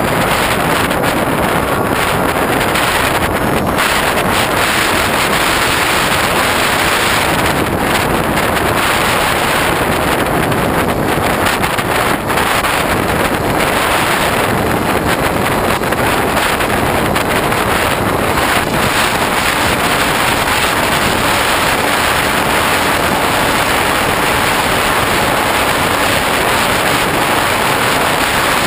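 Steady rush of wind buffeting the microphone of a GoPro mounted on a Hobbyking Bixler RC plane in flight.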